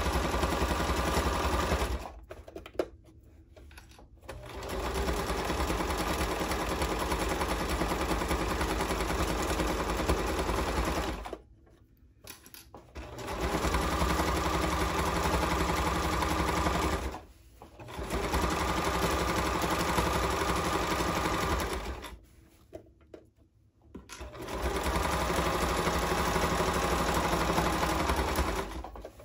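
Sewing machine stitching a seam through layered fabric, running in long steady stretches and stopping briefly four times before starting up again.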